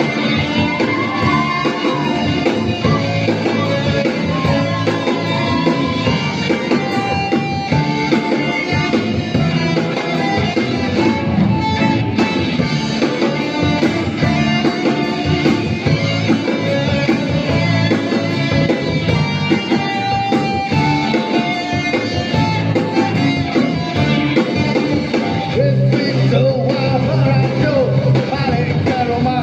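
Live rock band playing through stage amplifiers: electric guitars over bass and a drum kit, at a steady loud level.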